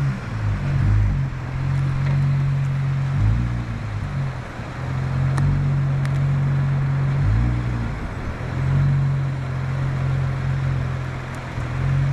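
Jeep engine running at low revs as it crawls, holding a steady pitch for a few seconds at a time with brief changes in between, over wind and surf noise.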